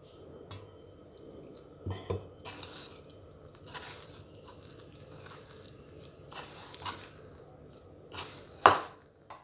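Hand kneading moist flour dough in a bowl: irregular soft squishing and crunching as the flour is squeezed and pressed together. A few sharper knocks against the bowl, the loudest near the end.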